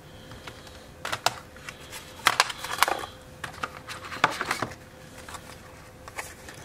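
Scattered light taps, clicks and rustles of hands handling cardboard packaging and a plastic bit case, some clicks coming in quick pairs.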